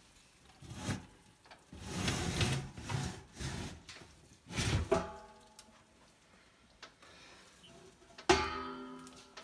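A stainless steel roasting pan scraping and rattling on the wire oven rack as it is handled, with short metal knocks. Near the end a sharp metal clank rings on briefly.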